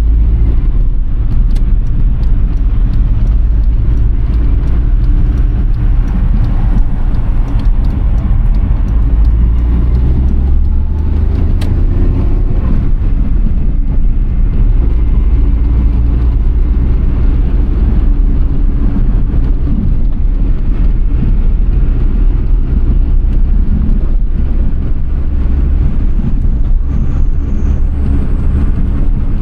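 Suzuki Alto Works (HA11S) three-cylinder engine and road noise heard steadily from inside the cabin while driving.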